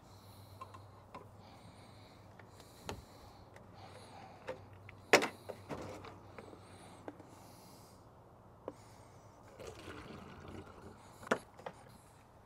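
Liquid being poured from a plastic jug through a plastic funnel into a spray bottle, with the jug, funnel and bottle being handled. There are several sharp plastic knocks, the loudest about five seconds in.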